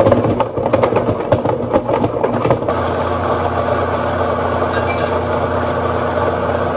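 Countertop blender running at full power on a frozen-peach smoothie. For the first couple of seconds frozen chunks knock and rattle against the jar, then it settles into a steady, even motor whir once the mix is smooth.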